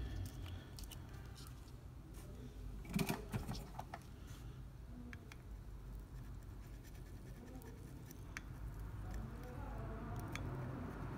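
Light scratching and small clicks of a soldering iron and solder wire being handled and brought to a PS4 controller's circuit board, with a short clatter about three seconds in, over a steady low hum.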